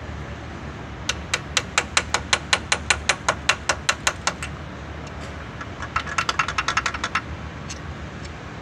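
Hand hammer tapping on metal on a Honda Integra cylinder head: a run of light, even taps at about five a second for some three seconds, then after a pause a quicker run of ringing metallic taps lasting about a second.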